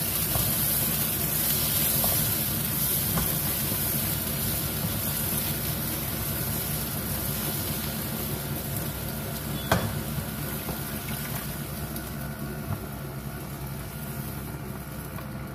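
Eggplant and carrot in coconut milk sizzling in a nonstick pan on a gas stove, stirred with a wooden spatula: a steady sizzling hiss that slowly dies down as the liquid heats, with light scrapes of the spatula. There is a single sharp knock about ten seconds in.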